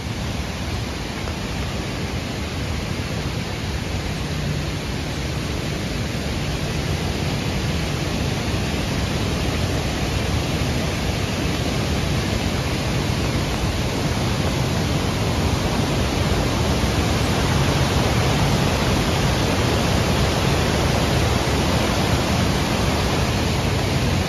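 Flood-swollen creek and waterfall rushing: a steady noise of fast, muddy white water that slowly grows louder.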